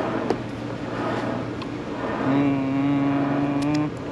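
Motor-vehicle noise: a steady low hum, joined about two seconds in by a loud steady droning tone that stops suddenly after about a second and a half.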